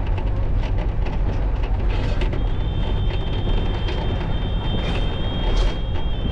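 Local bus running along the road, heard from inside: a steady engine and road rumble with rattling. About two and a half seconds in, a thin high steady tone joins it.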